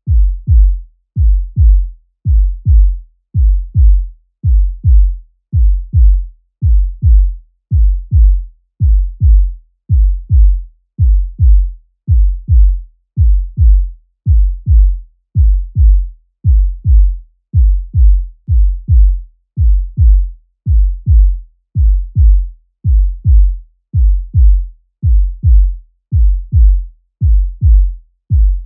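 Human heartbeat sound effect: slow, steady lub-dub pairs of deep thumps, one pair about every 1.3 seconds.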